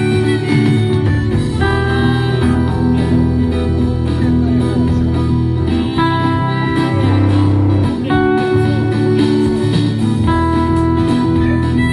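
Guitar playing an instrumental passage between the sung verses of a song: chords change about every two seconds over steady bass notes, with a few wavering, held high notes.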